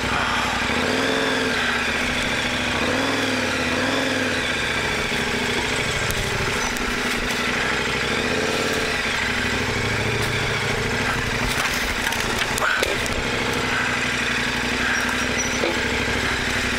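Adventure motorcycle engine running, revved up and down again and again, with a few sharp knocks near the middle.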